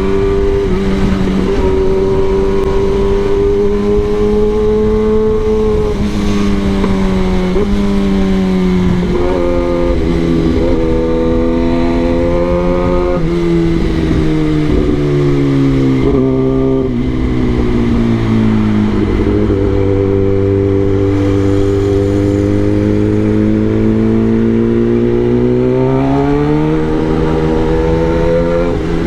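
Kawasaki ZX-10R's inline-four engine running under a rider in traffic. The pitch holds and shifts in small steps, sinks over several seconds about halfway through as the bike slows, then rises again near the end as the throttle opens.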